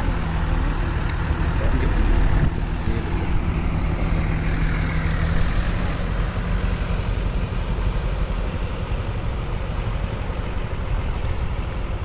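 A large tour bus's engine running as the bus pulls away, a steady low drone that slowly grows fainter.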